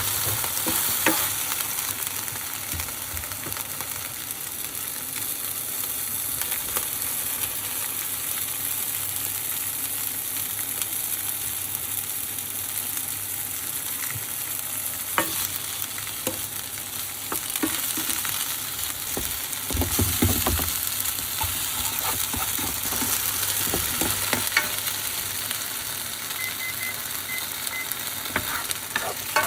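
Food sizzling steadily in a frying pan while it is stirred, with a utensil clicking and scraping against the pan now and then, busiest about twenty seconds in.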